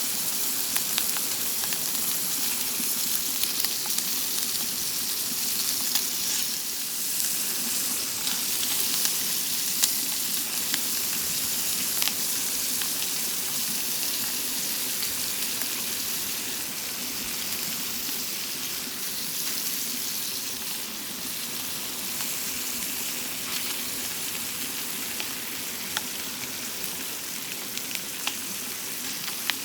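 Food frying in a pan: a steady sizzle with scattered sharp pops.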